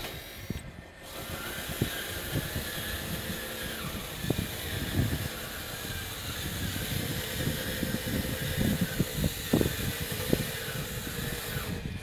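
Radio-controlled hydraulic bulldozer running: a steady whine from its motors and hydraulic pump, with irregular low knocks as the tracks work over the dirt.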